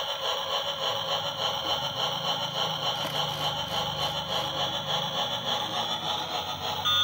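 Battery-powered transparent toy train running in place, its small motor and plastic gears whirring with a steady rattle.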